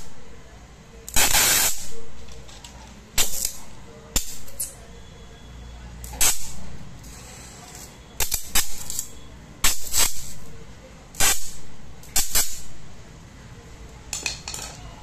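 Safety matches struck one after another, each catching with a short scrape and a fizzing hiss that dies away, every second or two and sometimes in quick pairs.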